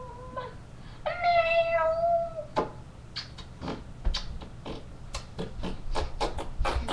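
Two drawn-out, high, meow-like cries, the second longer and slightly falling, followed by a run of sharp knocks, about two to three a second.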